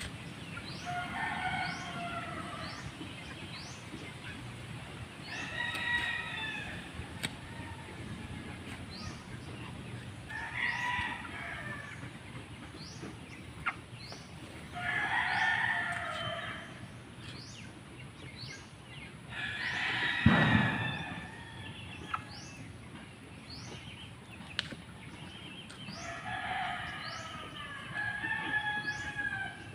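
Rooster crowing over and over, about seven crows each a second or so long, spaced a few seconds apart; the loudest comes about two-thirds of the way through. A faint high chirp repeats about once a second underneath.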